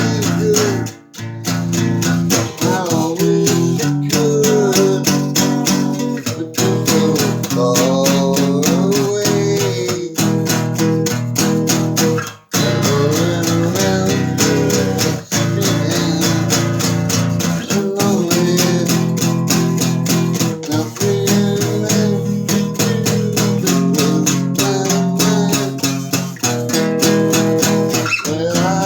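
Guitar strummed steadily, playing chords with a melody line above them.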